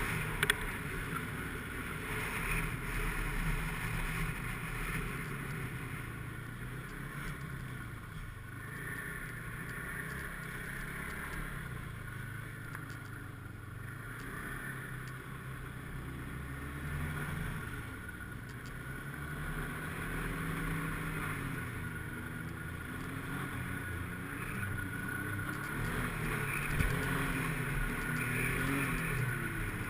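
Snowmobile engine running under way, its pitch rising and falling as the throttle is worked.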